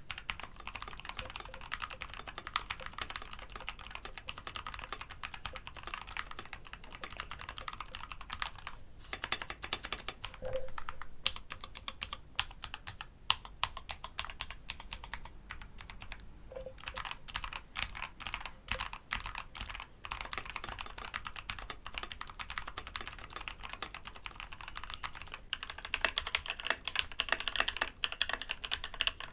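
Fast typing on mechanical keyboards: a steady clatter of keystrokes for a sound comparison. There are brief pauses about 9 and 16 seconds in, and the typing gets louder for the last few seconds.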